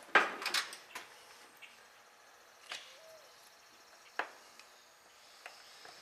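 Sharp metal clicks and knocks as hands fit parts of an Allis-Chalmers power director clutch at its shift collar. A quick cluster comes in the first second and is the loudest, then single clicks follow about every second or two.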